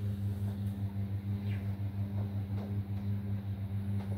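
A steady low machine hum, a motor or engine running, pulsing slightly a few times a second.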